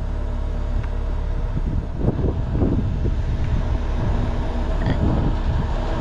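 Heavy-duty wrecker's diesel engine running steadily under load as its winch drags a dead Combilift over rutted dirt, with irregular rumbling and crunching about two seconds in and again near five seconds.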